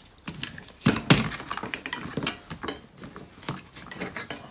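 Irregular clicks and knocks of plastic and metal as a jig built from Quick-Grip bar clamps is handled, the loudest about a second in, with lighter clicks after.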